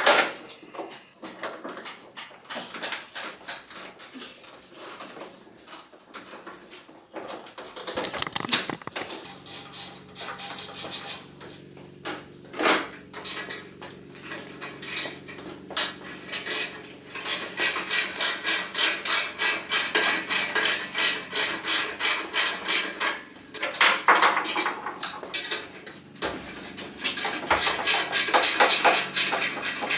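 Hand tools and metal exhaust parts clinking, with long runs of rapid, evenly spaced metallic clicks from about a third of the way in, during work on an ATV's exhaust system.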